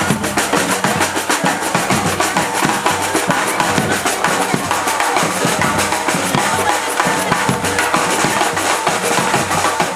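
Percussion group playing drums together in a dense, steady rhythm, deep drum beats under fast lighter strokes.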